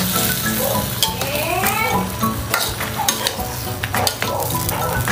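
A metal spoon stirring green papaya chunks in simmering coconut milk in a nonstick frying pan, scraping and clinking against the pan again and again while the sauce sizzles.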